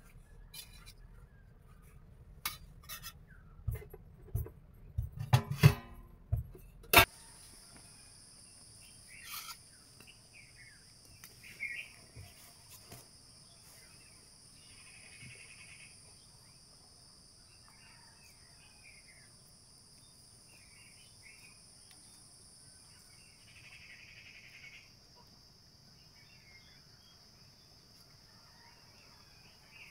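Metal pots and utensils clinking and knocking several times, the sharpest clink about seven seconds in. After that, insects buzzing steadily at a high pitch, with scattered short bird chirps.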